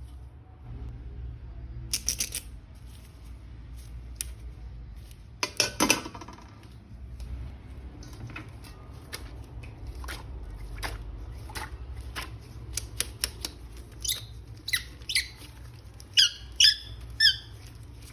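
A plastic action figure and its packaging being handled: scattered clicks and rustles, then a quick run of about six high squeaks near the end.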